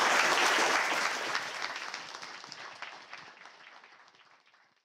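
Audience applauding, loud at first and then fading away over about four seconds.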